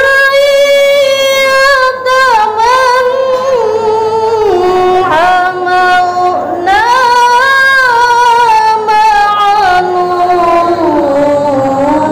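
A woman's voice chanting Qur'anic recitation (tilawah) in the melodic style, sung into a handheld microphone. Two long held phrases, each ornamented with quick wavers and stepping down in pitch, with a short breath between them about halfway through.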